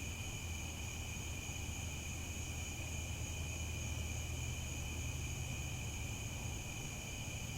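Crickets chirping in a dense chorus that blends into a continuous high trill at two pitches. A low, steady rumble sits underneath.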